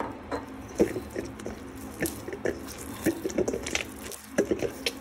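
Oiled flour dough being kneaded by hand in a stainless steel bowl: irregular wet squelches and light slaps, several a second.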